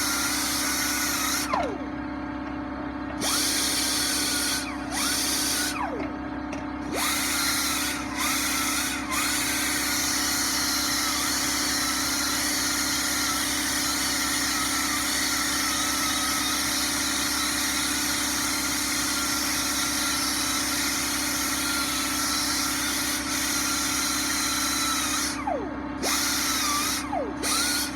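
Power tool spinning a wire brush against a machinist's vise to strip its paint. It is started and stopped several times in the first nine seconds, its whine falling after each stop, then runs steadily from about ten seconds until it stops again near the end.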